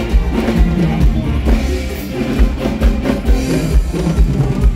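Amplified band music through a stage PA, with a drum kit and a heavy kick drum keeping a steady beat.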